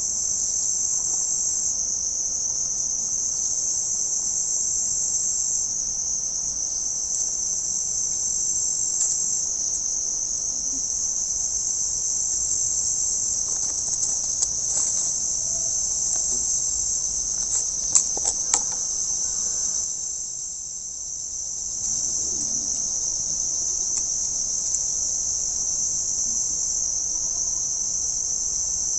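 A dense, steady, high-pitched chorus of insects chirring, which fades briefly about two-thirds of the way through. A few sharp clicks sound just before that fade.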